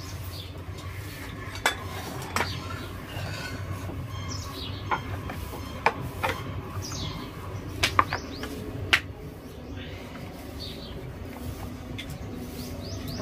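Scattered clinks and knocks of metal cooking vessels, a steel plate and a plastic lunch box being handled and set down while rotis are packed, with about seven sharper knocks spread through.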